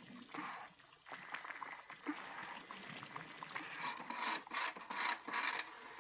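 Irregular scraping and rustling noises, quickening into a run of short strokes in the second half: an unexplained noise from outside that is not the wind in the trees.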